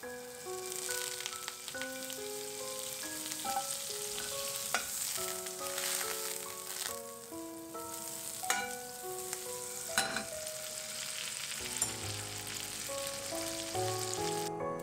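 Butter sizzling and foaming in a stainless steel frying pan as it melts and cooks toward brown butter, with a few sharp pops. A gentle melody of background music plays throughout.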